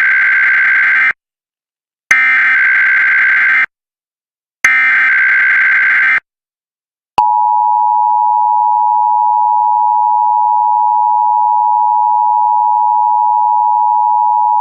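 Emergency Alert System SAME header: three bursts of warbling digital data tones, each about a second and a half long and a second apart. These are followed by the EAS attention tone, held steady for about eight seconds before it cuts off. The data bursts encode the alert's event type and areas, and the attention tone signals that an emergency alert message follows.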